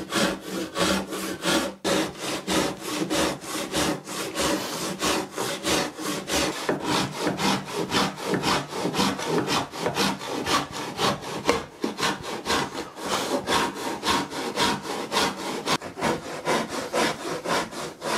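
Handsaw cutting through MDF along a joint, in a steady rhythm of quick back-and-forth strokes.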